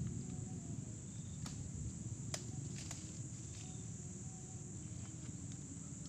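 Insects buzzing steadily at a high pitch over a low rumble, with a few sharp clicks in the middle.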